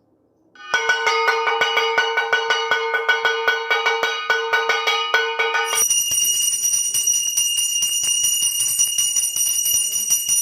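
A puja hand bell rung rapidly, its clapper striking several times a second with a ringing tone. About six seconds in, the ringing changes to a higher, brighter pitch.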